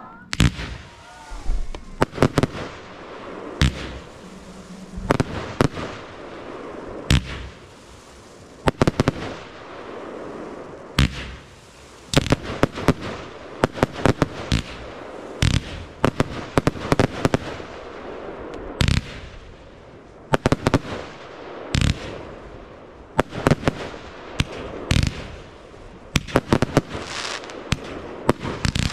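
Fireworks display: aerial shells firing and bursting in sharp bangs, some single and some in quick volleys of several, over a constant noisy background.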